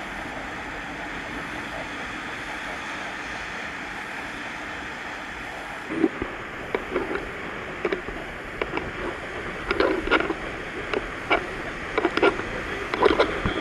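Rough sea surf after a typhoon: a steady rushing noise of heavy waves. From about halfway in, a run of short, irregular knocks and clatters sits on top of it, louder than the surf.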